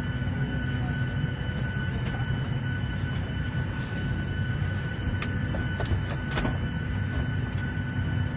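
Airliner cabin noise: a steady low drone from the engines with a continuous rush of air and a few faint high whines. A few brief clicks come a little past the middle.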